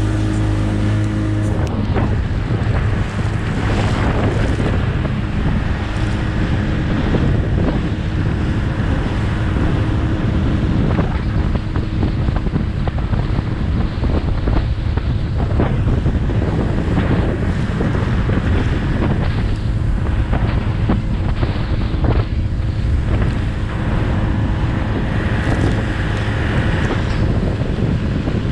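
Progress motorboat under way through big waves on its 40 hp two-stroke outboard: a steady engine note, clear for the first second or so and then largely buried under heavy wind on the microphone, with repeated slaps of the hull hitting the waves and spray.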